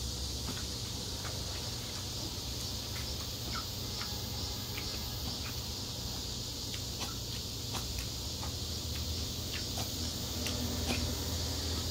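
Steady high hiss with a low hum underneath, and faint scattered clicks.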